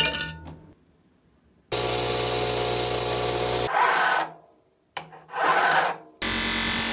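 A short clink with brief ringing as steel pliers go into a glass vessel of vinegar, then a hand file rasping on the steel pliers in several harsh stretches, the longest about two seconds.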